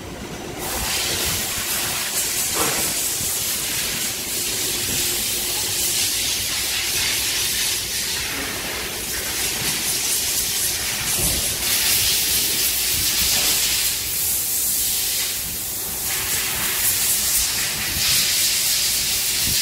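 Loud steady hissing from CNC lathe machinery, starting abruptly about half a second in, over a low machine rumble.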